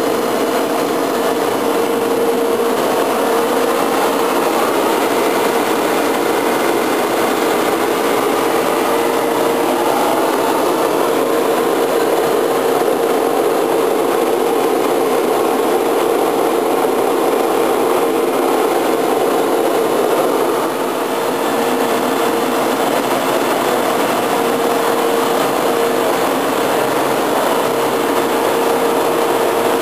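Steady mechanical drone with a constant humming tone, as of a motor or fan running, unchanging throughout.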